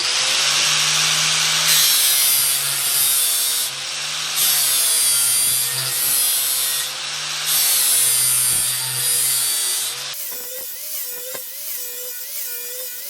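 A 4-inch angle grinder with a flap disc grinds the steel edge of a mower blade in a sharpening jig, in strokes with brief lighter moments between. About ten seconds in, the grinding gives way to a quieter run with a wavering whine.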